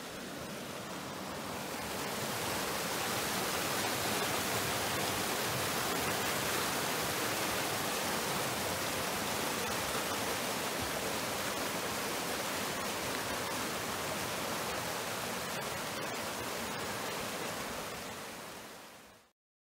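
Mountain creek rushing over rocks and small cascades: a steady, full rush of water that swells over the first couple of seconds and fades out just before the end.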